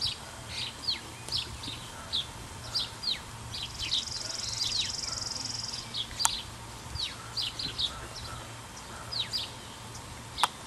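Small birds chirping over and over: short, quick, high chirps that drop in pitch, with a buzzy trill lasting about two seconds partway through. Two sharp clicks stand out, one midway and one near the end.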